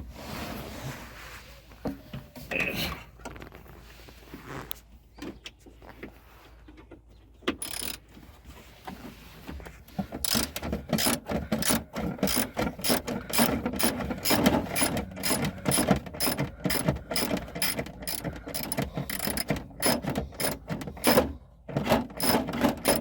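Hand ratchet on a short extension clicking rapidly and repeatedly as a screw is backed out. The clicking starts about ten seconds in, after some quieter fiddling with tools.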